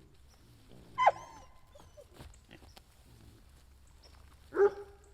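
A dog barking: two short, sharp barks, one about a second in and one near the end, the first dropping in pitch. Faint bird chirps sound behind them.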